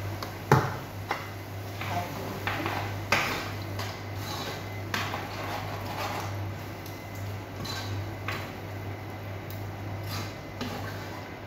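A metal utensil stirring in a stone-coated cooking pot, clinking and scraping against it, with irregular knocks; the sharpest knock comes about half a second in. A steady low hum runs underneath.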